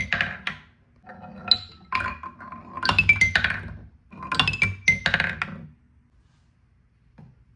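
Marbles rolling and clattering down a plastic marble-run track, with ringing, bell-like pitched clinks, some stepping down in pitch, in three spells of activity. The clatter stops about two seconds before the end, leaving it quiet but for one small click.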